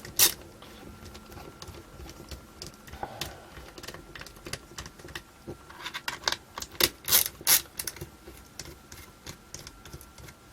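Small hard plastic objects being handled: scattered light clicks and taps, with two sharp clicks at the start and a cluster of louder knocks about six to seven and a half seconds in.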